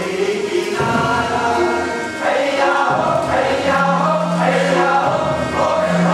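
Music with a group of voices singing together; a low held note comes in a little past halfway.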